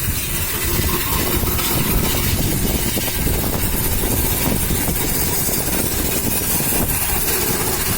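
High-pressure washer running steadily at a vehicle water-wash: a constant motor and pump noise with the hiss of the spray.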